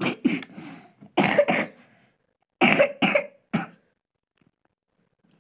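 A person coughing repeatedly: a run of short, harsh coughs in about four quick bouts.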